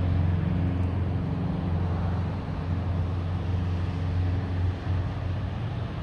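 Steady low engine drone with a rumbling hum mixed into road traffic noise, from diesel traffic on a highway and a freight train beyond it.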